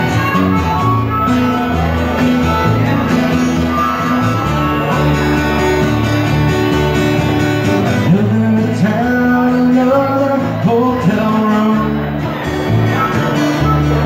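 Small live band playing a song: a man singing at the microphone over guitar and upright bass.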